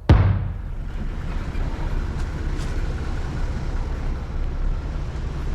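A single sharp hit at the very start, then a vehicle driving along a road: a steady low rumble of engine and tyres.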